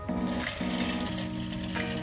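Background music with held chords that change about every half second.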